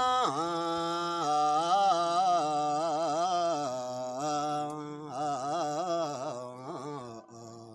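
A man singing an Ethiopian Christian hymn (mezmur) solo and unaccompanied: a slow chant of long drawn-out notes with wavering melismatic ornaments, fading near the end.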